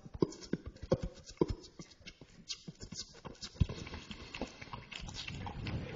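Beatboxing into a handheld microphone: sharp mouth pops and clicks in an uneven rhythm, turning into a denser rattle of rapid clicks about halfway through.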